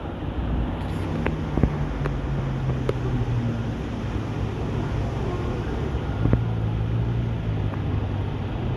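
A car engine running at low, steady revs amid street traffic noise, with a few sharp clicks.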